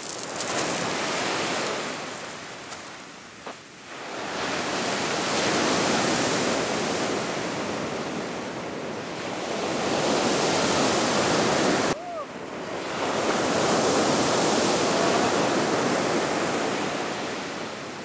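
Surf breaking and washing up a pebble beach, a steady rush that swells and fades every few seconds, with a sudden break about twelve seconds in.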